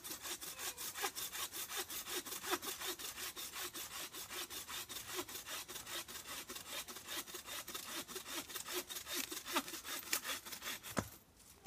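Bow saw cutting by hand through a thin, bone-dry standing dead tree trunk, in quick, steady back-and-forth strokes. The sawing stops near the end with one sharp knock.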